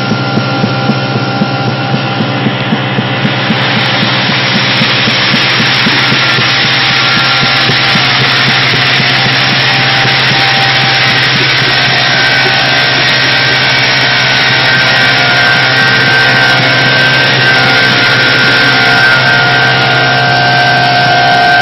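Walinga UltraVeyor UV60 pneumatic grain conveyor, driven by a 50 hp motor, running at full flow: a steady hum under a dense rushing hiss of seed grain pouring into the intake hopper and being carried off. The hiss thickens after a few seconds, with a rapid ticking at the start.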